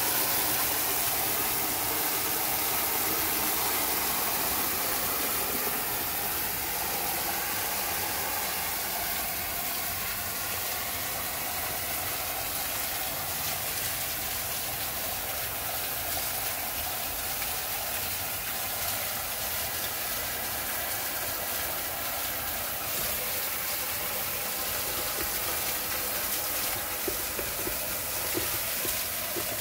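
Steady rush of water pouring from a garden tap into a brimming plastic bucket, splashing and spilling over the rim.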